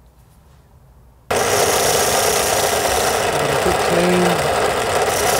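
A loud, steady machine noise that switches on abruptly about a second in and keeps going.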